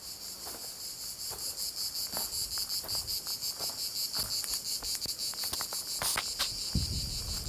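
Insects chirring in a dense, steady, rapidly pulsing high-pitched chorus across the scrub. Scattered sharp clicks of footsteps on stony ground, and a brief low rumble near the end.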